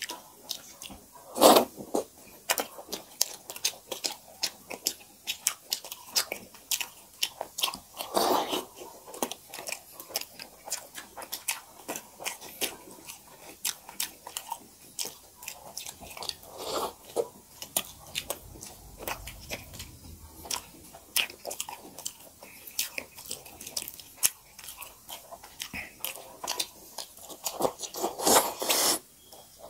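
Close-miked chewing and lip-smacking of people eating makai dhido (maize-flour porridge) and chicken curry by hand: a steady stream of short wet smacks, with a few louder mouthfuls standing out.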